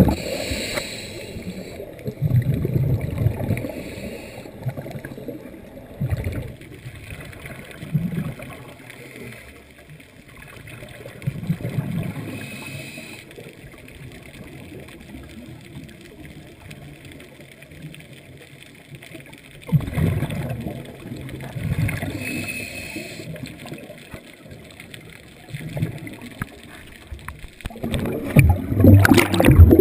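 Scuba divers' exhaled bubbles gurgling up from their regulators, heard underwater, in bursts every few seconds and loudest near the end.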